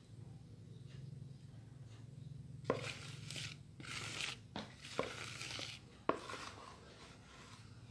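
Three sharp knocks with scraping and rustling between them, over a steady low hum.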